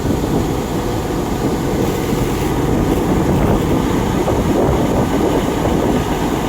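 Rice combine harvester's engine running steadily while its unloading auger empties the grain tank into a truck, a loud continuous low rumble.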